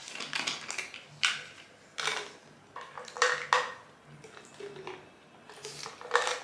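Plastic supplement bottle being handled and opened: a handful of sharp clicks and rattles from the cap and the pills inside.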